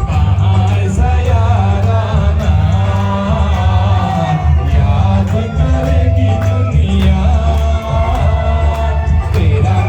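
A man singing a song over loud music with a heavy bass.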